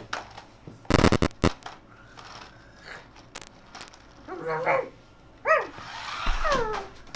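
A child imitating a dog: a short bark-like call, then two yelps that fall in pitch, in the second half. About a second in there is a brief loud clatter.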